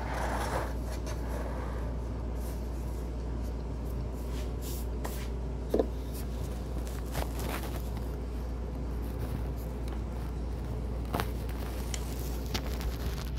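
Steady low hum with a handful of short, light knocks and scrapes of a spatula against a glass mixing bowl of cake batter.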